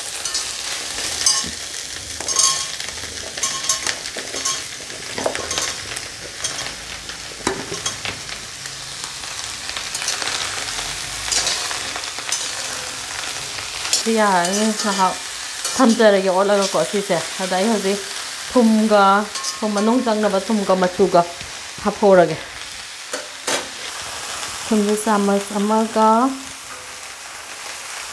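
Stir-frying: pumpkin cubes and fermented bamboo shoot sizzling in oil in a wok while a perforated steel spoon scrapes and stirs them, with scattered clicks of the spoon against the pan. About halfway through a person's voice comes in over the frying in several short phrases.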